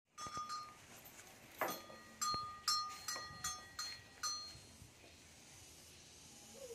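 Metallic clinking: about nine sharp strikes, each with a short bell-like ring, irregularly spaced over the first four seconds, then quiet.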